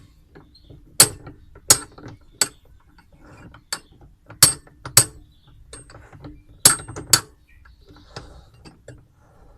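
Metal tools clanking and clinking on a washing machine's gearbox nut as it is worked loose anticlockwise with a socket: about a dozen sharp metallic knocks at uneven intervals, some with a short ring.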